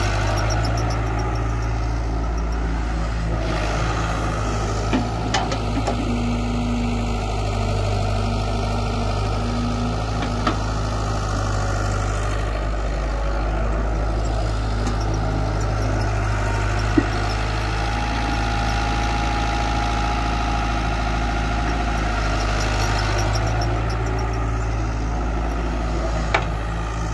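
Caterpillar tracked excavator's diesel engine running steadily while it digs and lifts sandy soil, with a few short sharp knocks along the way.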